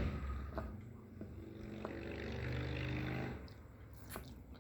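A man's low closed-mouth hum of enjoyment, held for about two seconds, with a few faint mouth clicks from chewing an oyster.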